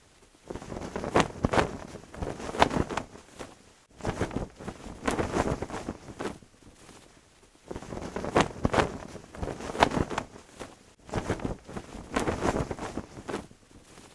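A cloth flag flapping and snapping in gusty wind, in surges of a few seconds with short lulls between them.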